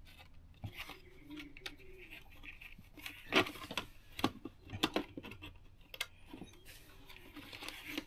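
Propane detector unit being handled and pushed into its wall cutout: scattered light clicks and taps, with a sharper knock about three and a half seconds in.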